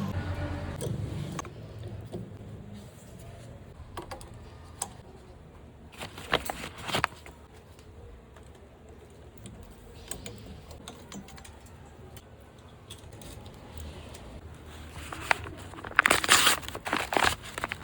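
Scattered clicks and clinks of small hard objects being handled, with a denser clatter about six seconds in and again near the end.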